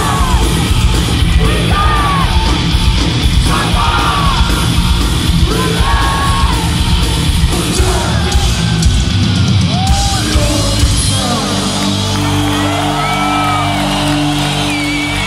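Live heavy metal band playing loud, with distorted guitars and fast drumming, and voices yelling over it. About ten seconds in, the drumming stops and a held chord rings on steadily as the song ends.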